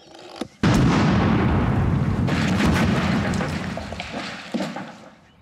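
An explosion goes off about half a second in: a sudden loud boom whose noise rolls on for about four seconds with scattered sharp cracks, fading near the end.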